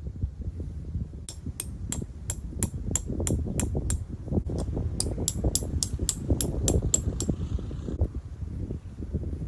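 A quick, even run of sharp clicking taps, about three a second, lasting several seconds over a low rumble of wind.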